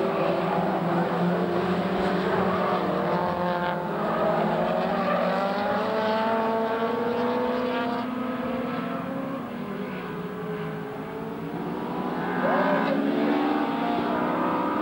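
A pack of race-prepared saloon cars running hard, several engines at once, their pitches rising and falling as the cars accelerate and pass. The sound dips a little about eleven seconds in, then swells again.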